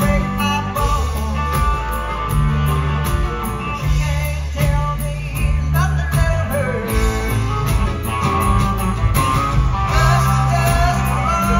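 Live rock band playing a song on electric guitar, bass guitar, drum kit and congas, with a strong bass line.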